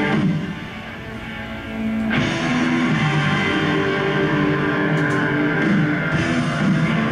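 Rock music with guitar and drums, played through the room's speakers. It drops away briefly just after the start and comes back loud about two seconds in.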